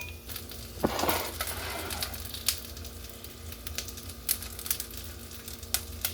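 Scattered utensil clicks and a scrape about a second in as pan-fried dumplings are lifted out of the pan for plating, over a steady low hum.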